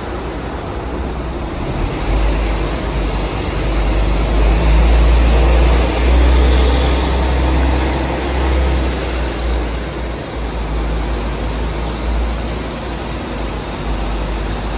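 Volvo city bus engine rumbling as the bus pulls away and drives close past, loudest midway and then easing off. A second city bus's engine comes in near the end.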